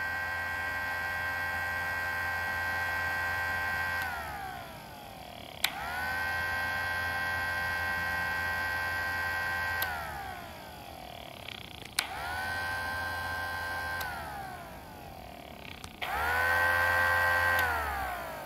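Homemade miniature ACA P-15 mechanical siren, a small battery-powered motor spinning the chopper in its horn, sounding in short runs. Each time it is switched on with a click it rises quickly to a steady wail with a low motor hum beneath, then winds down in falling pitch when switched off. It is already sounding at the start, winds down about four seconds in, and runs three more times, the last the loudest.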